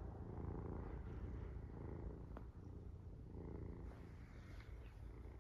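A domestic cat purring steadily, the purr swelling and easing with each breath about once a second.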